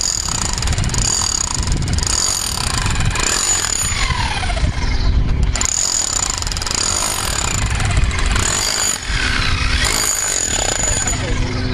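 Power chipping hammer breaking up concrete, running in three spells with short pauses about four and a half and eight and a half seconds in.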